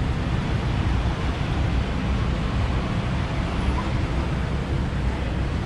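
Steady street noise of town traffic, with a heavy low rumble of wind buffeting the microphone.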